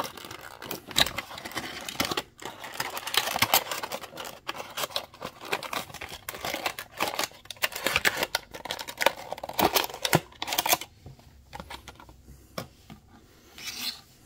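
Toy blind-box packaging being opened by hand: rapid crinkling, tearing and clicking of cardboard and plastic wrap. It eases off about eleven seconds in, with one more short burst near the end.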